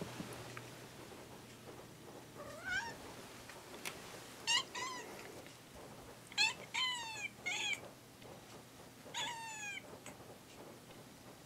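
Kitten meowing about seven times in short groups, the first call rising and most of the rest falling in pitch: a cat's demand to be let outside.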